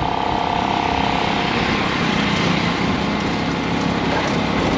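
Street traffic noise with a small engine running close by; a steady tone in the mix fades out about a second and a half in.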